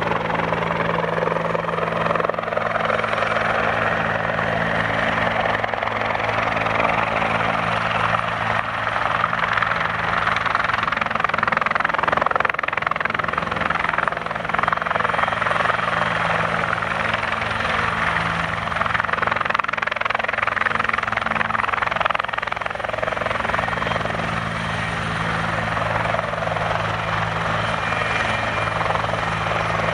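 Bell 412 helicopter running steadily: turbine whine and rotor noise with a fast, even blade beat.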